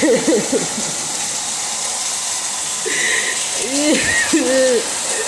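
Water gushing steadily from a burst sprinkler pipe, with a woman's distraught wailing cries breaking in at the very start and again about four seconds in.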